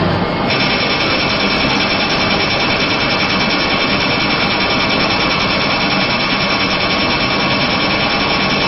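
LASIK surgical equipment running with a steady mechanical buzz, a higher hiss-like layer coming in about half a second in and holding steady.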